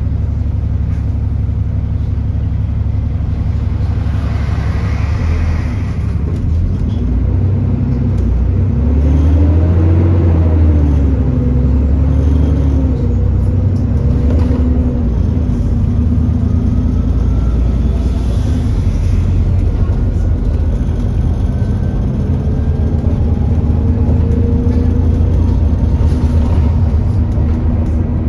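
Alexander Dennis Enviro400 E40D double-decker bus running on the move, heard on board: a steady low diesel rumble with the engine note rising and falling a few times in the middle, and a faint whine that climbs slowly later on.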